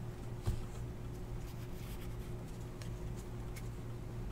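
Faint rustling and light clicks of glossy trading cards being slid and flipped through in the hands, over a steady low hum.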